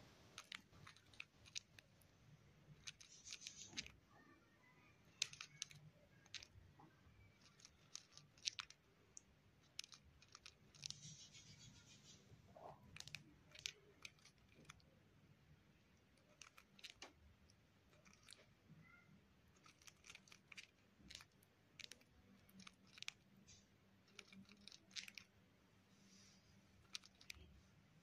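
Cockatiel grinding its beak: faint, irregular dry clicks and crunches. This is the sound a relaxed, drowsy cockatiel makes as it settles to sleep.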